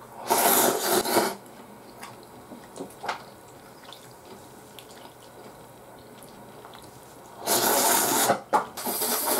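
A man slurping ramen noodles loudly in two goes: a short slurp of about a second just after the start, and a longer one of nearly two seconds near the end, broken by a brief catch of breath. Faint chewing sounds come in between.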